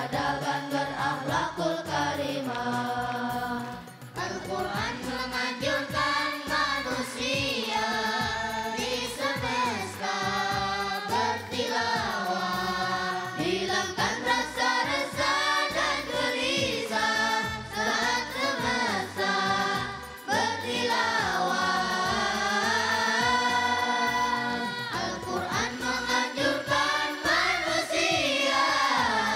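A boys' choir singing an Indonesian Islamic song together into microphones.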